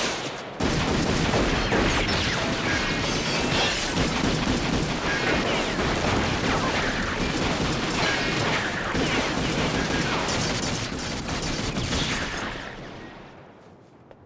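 Long, unbroken burst of rapid automatic gunfire, loud and dense, dying away over the last couple of seconds.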